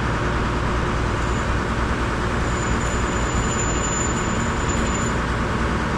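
A heavy engine or machine running steadily, a constant low rumble under an even noise.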